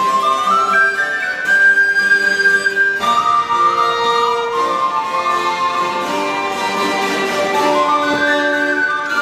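Live early music for recorder, violin and harpsichord playing together. A melody climbs in steps in the first second or so and holds a high note for a couple of seconds, then moves on, with another rising run near the end.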